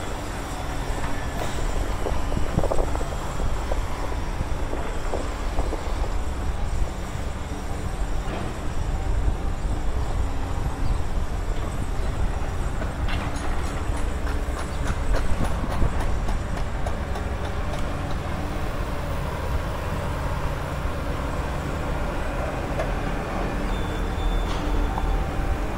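Steady low rumble of a large passing vehicle, with a run of quick rattling clicks about halfway through.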